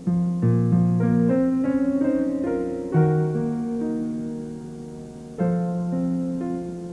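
Slow piano music: a gentle melody over held chords, with fresh chords struck at the start, about three seconds in and again about five and a half seconds in, each note ringing and fading away.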